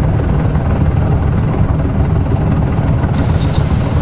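Wind buffeting the microphone on the deck of a moving sailboat: a loud, steady low rumble. The sound changes about three seconds in, where the footage cuts.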